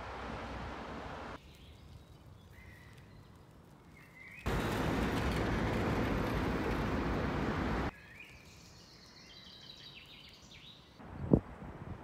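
Cut-together city ambience: a steady hum of traffic, then a louder stretch of steady traffic noise from about four to eight seconds in, with faint bird chirps in the quieter stretches. A couple of sharp thumps come near the end.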